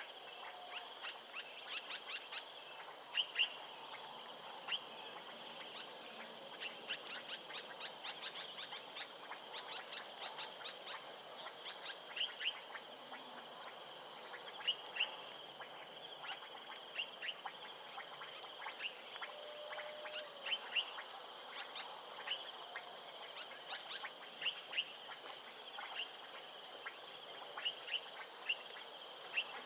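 Insect chorus trilling steadily in a fast pulsing rhythm, with many short, sharp chirps scattered through it, at times several a second.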